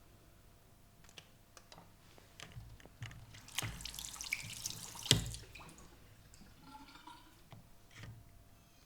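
Wet, splashy sounds of liquid being handled, with scattered small clicks and one sharp, louder click about five seconds in.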